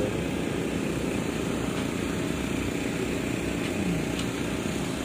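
A steady, low mechanical hum like a running engine, under a constant wash of background noise.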